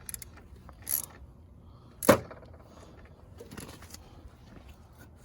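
Hand-tool work on a scooter's engine shrouds and bolts: scattered light clicks and one sharp clink about two seconds in that rings briefly.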